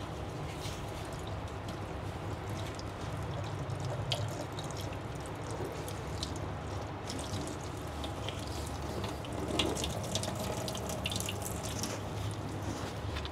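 Liquid dripping and trickling into a stainless steel sink from a squeezed cheesecloth bag, in irregular drips over a steady low hum.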